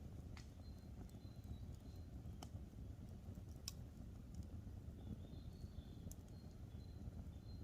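Wood campfire burning with a faint low rumble and a few sharp pops of crackling wood, about four in all. Faint short high chirps sound now and then in the background.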